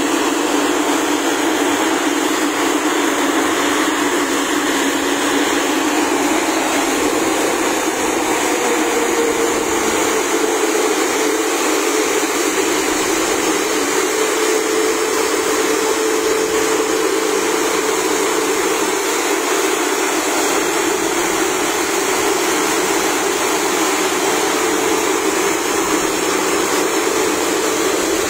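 Airbus A350-1000's Rolls-Royce Trent XWB turbofan engines running at idle as the aircraft taxis in close by: a steady, loud rushing whine. A faint tone rises slightly about a third of the way in and holds for several seconds.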